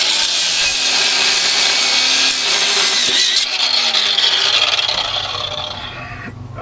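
Angle grinder grinding hard against the seized steel clevis pin on a bus's front air-brake chamber pushrod. It cuts in suddenly, grinds for about three and a half seconds, then comes off the metal and winds down.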